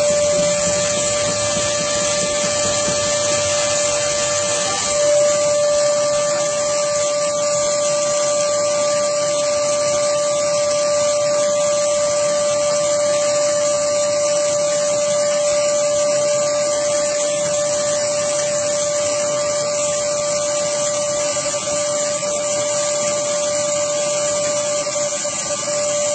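Wet/dry shop vacuum running steadily: a constant motor whine over a hiss of rushing air, its pitch stepping up slightly about five seconds in.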